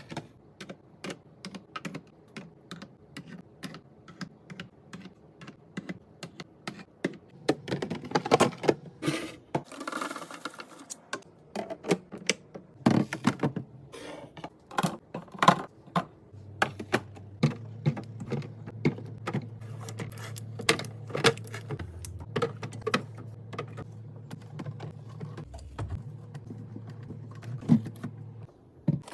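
Rapid, irregular clicks and taps of drinks and snack packages being handled and set into a mini fridge, with a brief rustle partway through. A low steady hum comes in about halfway and runs under the taps.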